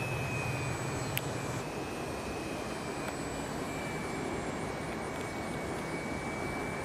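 Turnigy C2830 1100kV brushless electric motor spinning a 9x5 propeller on a foam RC plane in flight, giving a steady high whine over propeller and air noise. The pitch eases down slightly in the first few seconds, then holds steady. A single sharp click comes about a second in.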